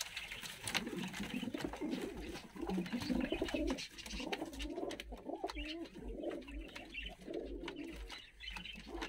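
Several domestic fighting pigeons cooing in a small loft, one coo after another rising and falling in pitch, with a few sharp clicks among them.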